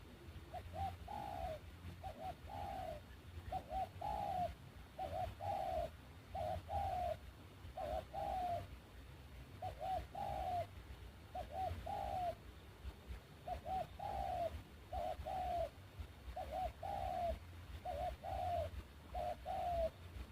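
A dove cooing over and over: about fourteen phrases, each a couple of short notes and then a longer falling coo, roughly one phrase every second and a half.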